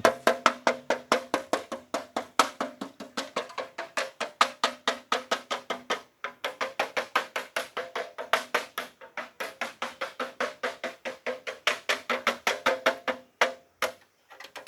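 An object being beaten rapidly and steadily by hand, about four to five strikes a second, each strike ringing with the same tone. The beating breaks off briefly about six seconds in, then resumes and stops shortly before the end.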